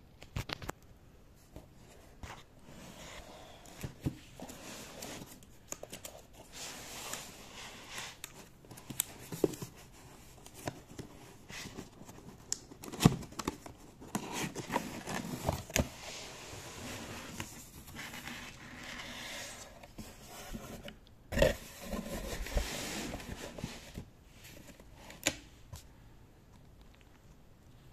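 Cardboard box being handled and opened by hand: irregular scraping and rustling of the cardboard flaps and packing, with scattered clicks and knocks. A sharp knock comes about halfway through and a heavier thump a little later.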